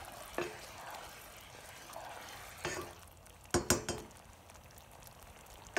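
A spoon stirring a simmering, flour-thickened sauce in a skillet over a faint steady hiss, with a few scrapes and knocks of the spoon against the pan, the loudest a quick cluster about three and a half seconds in.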